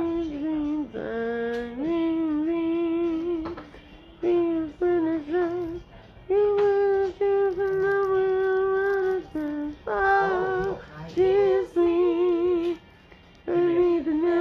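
A voice singing a slow, high melody of long held notes with vibrato, unaccompanied, in short phrases with brief pauses between them.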